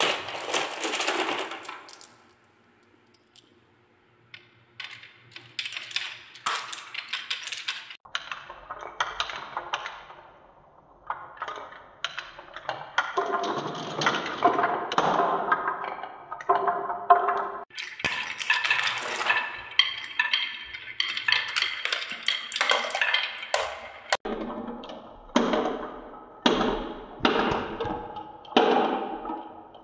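Many marbles rolling and clattering down wooden marble-run tracks and a wooden spiral, a dense stream of clicks and knocks as they strike the wooden track and each other. The clatter thickens about halfway through, and near the end it comes in regular pulses.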